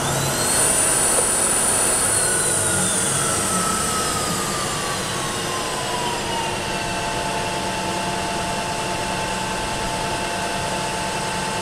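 Vertical milling machine spindle running with a drill chuck fitted: a steady machine whine made of several tones, sliding down in pitch for the first several seconds and then holding level.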